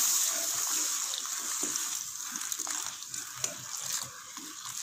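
Boiling water pouring into hot ghee-roasted semolina in a nonstick pan, hissing and spluttering with small crackles as a spatula stirs it; the hiss fades steadily as the pan cools under the water.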